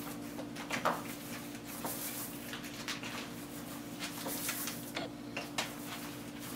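Wide paint roller on an extension pole rolling wet polyurethane floor coating: a faint soft rolling, with a few light clicks and knocks from the roller frame and footsteps, over a steady low hum.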